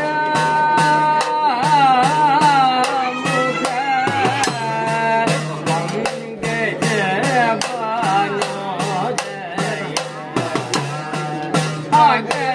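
Sopana sangeetham, Kerala temple singing: a man's voice sings long, ornamented phrases that glide and bend in pitch, over an edakka hourglass drum beating a steady rhythm.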